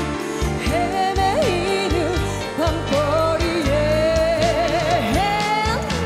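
A woman singing a Korean song into a microphone, backed by a live band with a steady bass beat. She holds long notes with a wide vibrato and lifts to a higher note near the end.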